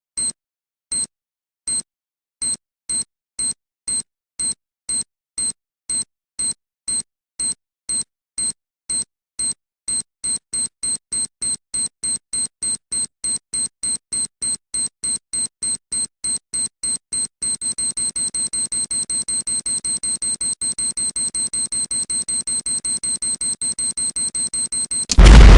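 Sound effect of a timed bomb's electronic countdown: high-pitched beeps, about two a second at first, speeding up to a fast, almost unbroken beeping. A loud explosion bursts in near the end.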